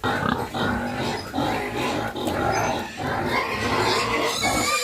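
A pen of pigs squealing and grunting together in a constant din at feeding time, as fresh mixed feed is brought to them.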